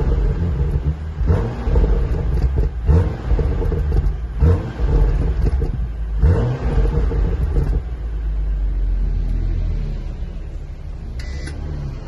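BMW 435i's turbocharged straight-six with its stock exhaust, valve open in Sport mode, revved in four sharp blips over the first seven seconds, then dropping back to a steady idle.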